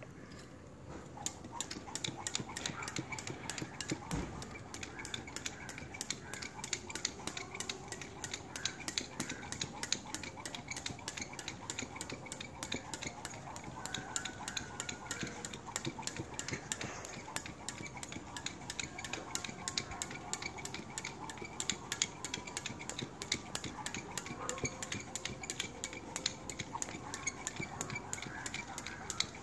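Skipping rope in use: the rope and bare feet tapping on paving tiles in a quick, steady rhythm, about three taps a second, starting about a second in.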